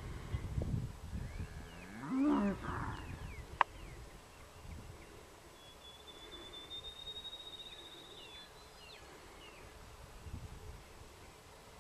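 One short moo from White Park cattle about two seconds in, followed by a single sharp click. Faint bird chirps and a thin, high, steady trill come later over low outdoor rumble.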